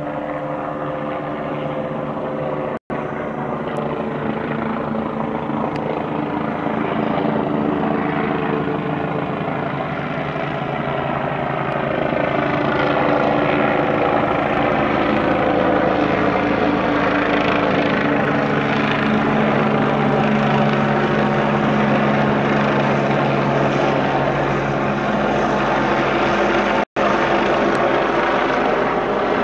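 Agusta A109 police helicopter flying overhead: steady rotor and engine noise that grows louder about twelve seconds in as it comes closer. Two split-second dropouts break the sound.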